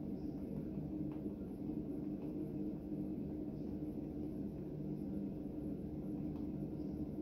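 Steady low background hum with a few unchanging low tones, from a machine running in the room, and a couple of faint ticks.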